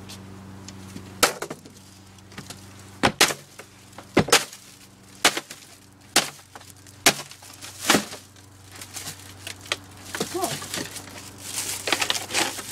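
Hammer blows smashing a lamp shade on wooden boards: about nine sharp strikes at roughly one a second, then a quicker run of crackling and knocks near the end as the shade, still in its plastic covering, is crushed.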